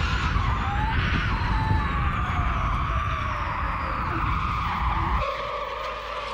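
The Audi S1 Hoonitron's electric motors whine, rising and falling in pitch, while its tyres squeal and scrub through a drift, with no engine note. A heavy low rumble underneath cuts away about five seconds in.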